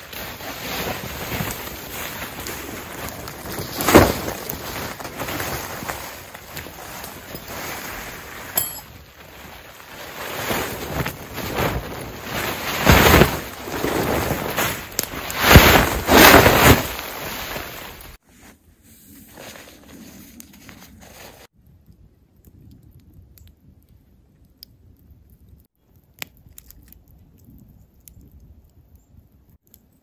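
A Särmä thermal cloak's fabric rustling and flapping as it is pulled down and shaken out to knock the snow off it, with loud flaps about four seconds in and several more between twelve and seventeen seconds. About eighteen seconds in it cuts off suddenly, leaving only faint rustles.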